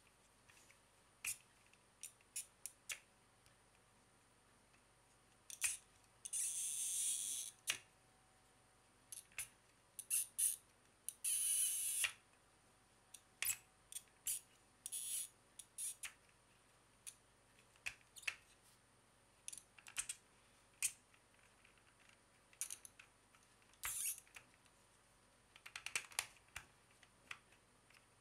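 Plastic clicks and clacks of a Rubik's Snake's wedge segments being twisted into new positions, irregular and spread out, with two longer rasps of segments turned against each other about six and eleven seconds in.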